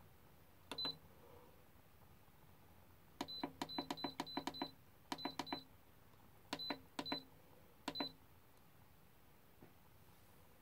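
Buttons on an electric pressure cooker's control panel pressed one after another, each press a click with a short high beep, as the cooking program is set to slow cook. The presses come singly and in quick runs, the longest about eight presses in a row, a third of the way in.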